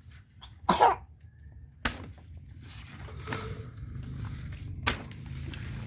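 Golok machete chopping through galangal stalks: a loud swishing hack just before one second in, then two sharp chops, about two seconds in and near the end.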